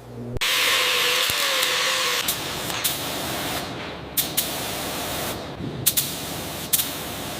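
A steady hissing spray, such as a tool spraying air, water or paint, with a faint wavering whine in its first couple of seconds and a few short sharp clicks later on.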